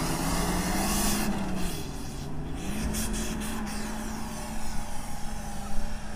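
Off-road vehicle engine running at steady revs, with a broad rushing noise over it for about the first second.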